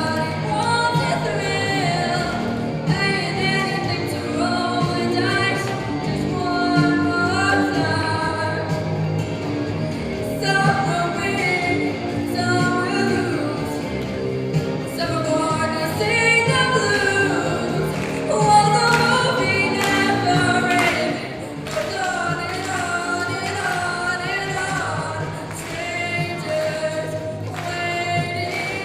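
Singing with instrumental accompaniment, a melodic vocal line running throughout.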